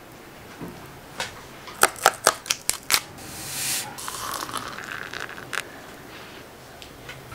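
A quick run of about six sharp clicks and taps, then a short hiss and a pouring sound as hot water fills a ceramic mug.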